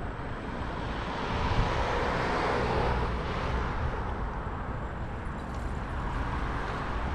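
Wind rush and low rumble from riding a scooter through city streets, with a broader rushing sound swelling and fading about two to three seconds in, like a vehicle going past.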